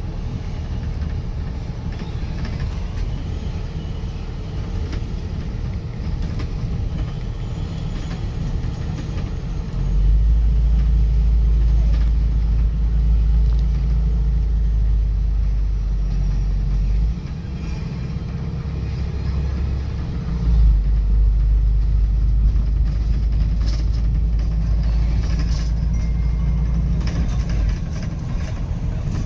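Road traffic noise: a steady rumble that grows much heavier for two stretches of several seconds, starting about ten seconds in and again about twenty seconds in.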